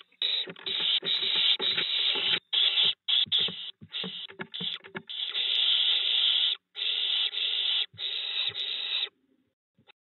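Barn owlets calling: repeated rasping, hissing screeches, short at first and then three long ones of about a second each in the second half. Low knocks of the owlets moving about in the wooden nest box come with the calls in the first half.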